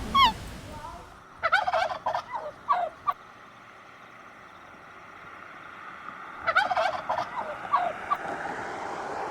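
Turkey gobbling twice: a rapid, rattling run of warbled notes about a second and a half long, then a second one about five seconds later.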